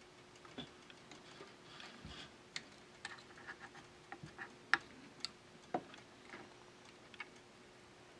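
Faint, irregular small clicks and taps of a soldering iron tip and solder wire against capacitor leads and a circuit board while new capacitors are soldered in, the sharpest a little under five seconds in, over a faint steady hum.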